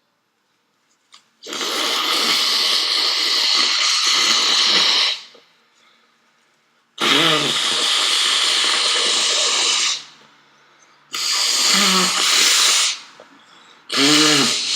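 A person with a cold blowing their nose hard three times, each blow a long rush of air lasting three to four seconds. Near the end come short, quick breaths with a voice in them.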